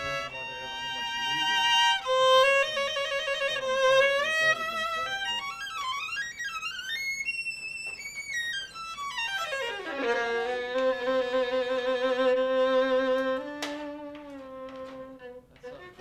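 Solo violin playing held notes, with a fast run up and back down about the middle, then long low held notes that fade near the end.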